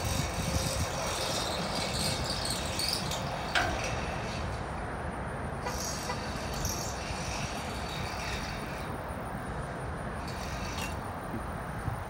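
Freight car rolling slowly during a switching move, its wheels making a steady low rumble on the track. There is one sharp clank about three and a half seconds in, and insects chirp on and off in the background.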